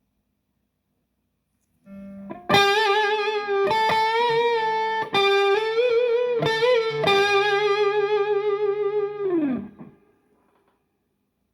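Electric guitar played through a Donner Force 2 mini preamp set for clean breakup with reverb. About two seconds in, a short phrase of single picked notes begins, some with vibrato. It ends on a long held note that slides down in pitch and fades away.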